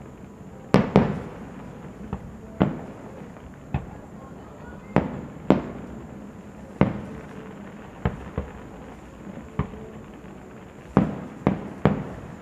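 Fireworks going off: about a dozen sharp bangs at uneven intervals, several in quick pairs or clusters, each trailing off in a brief echo.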